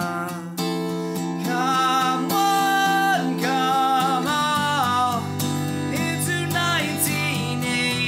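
Taylor acoustic guitar strummed over looped guitar layers from a loop pedal, with a man's voice singing a melody over it.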